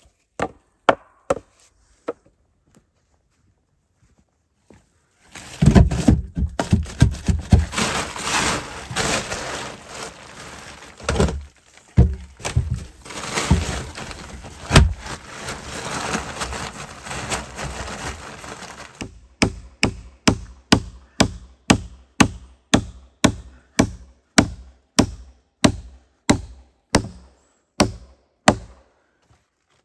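Hammer striking wood: a few knocks at first, then a long stretch of dense knocking over a rough scraping noise, then an even run of blows about two a second that stops near the end.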